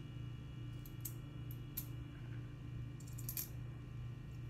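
Pennies clinking against one another as fingers sort through them in an open palm: a few light, sharp clicks, bunched together about three seconds in, over a low steady hum.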